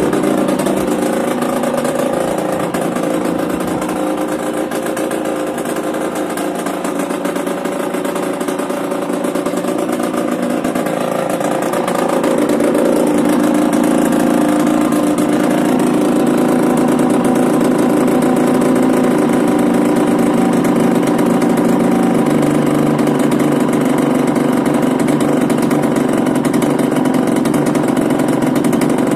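Yamaha DTR 125 single-cylinder two-stroke engine with a Big One expansion-chamber exhaust, running steadily after being fitted with a new unrestricted CDI. It gets louder about twelve seconds in and then holds level.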